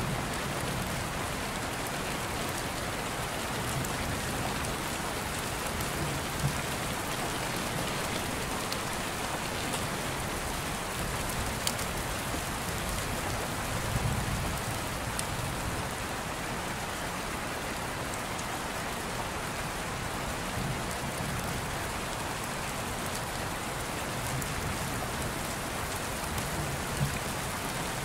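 Steady rain, an even hiss with a few sharper scattered ticks and a brief low rumble about halfway through.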